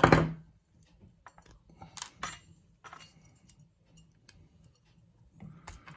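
Small metal clicks and clinks of a lock and hand tools being handled: one sharp click at the start, then scattered lighter clicks and taps.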